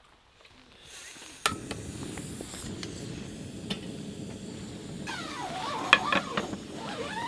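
A sharp click about a second and a half in, then the steady rush of a small camping gas stove burner under an aluminium kettle. In the last two seconds, sharp clinks and squeaky rising and falling sounds join it.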